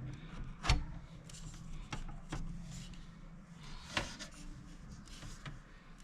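Handling sounds: a few sharp knocks and clicks with some rustling, over a low steady hum. The loudest knock comes just under a second in, and a second strong one about four seconds in.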